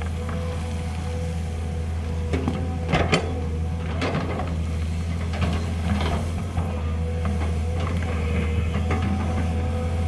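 Volvo EC210B excavator's diesel engine running steadily under load, with a steady whine over it. Several sharp clanks and scrapes of the steel bucket on rock and gravel, the loudest a quick pair about three seconds in and more around four and six seconds.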